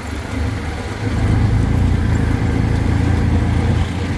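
Small engine of an open tuk-tuk running under way through city traffic, a steady low rumble with road noise that grows louder about a second in.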